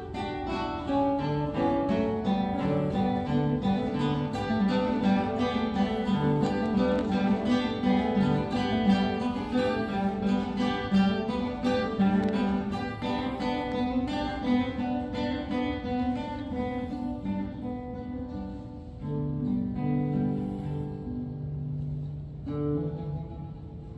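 Four classical guitars playing together, a dense stream of quick repeated plucked notes that thins out near the end into fewer, slower, lower notes.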